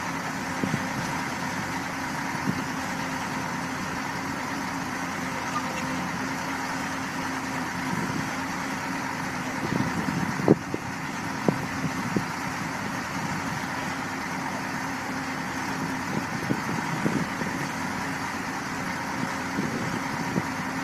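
Excavator diesel engines running steadily at a constant pitch. A few sharp metallic knocks come about ten to twelve seconds in.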